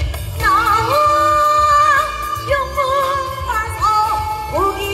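A woman singing long held, sliding notes in Korean pansori style over a gayageum and a steady low beat.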